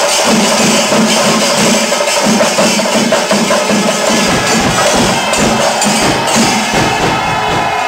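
Music with dense, fast percussion over a steady pitched tone.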